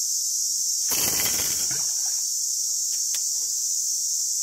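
Steady, dense, high-pitched insect chorus of a tropical forest, with a short noisy burst about a second in.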